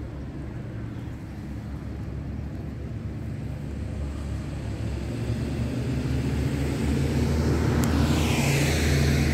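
A motor vehicle's engine hum growing steadily louder as it approaches, then a rush of tyre and air noise as it passes close near the end.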